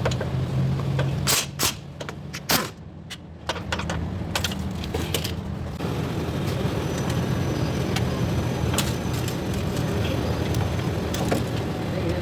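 A vehicle running steadily with a low hum, with several sharp clicks or knocks about one to three seconds in.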